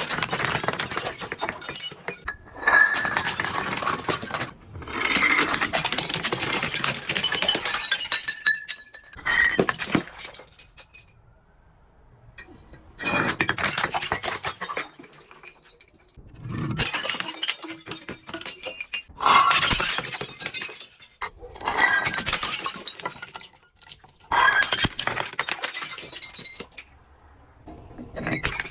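Glass bottles being crushed and shattering, in a series of crunching bursts each a second or two long with short pauses between, with clinks of broken glass.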